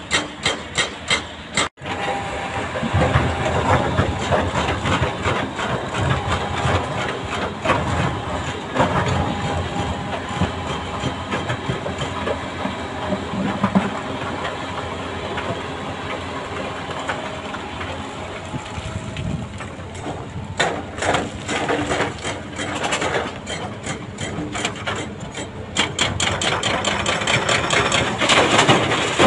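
A hydraulic breaker hammering rock in rapid strikes, about five a second, that cut off abruptly. Then a Doosan DX340LCV excavator's diesel engine runs steadily under load as it digs and swings its bucket, with rapid knocking coming back near the end.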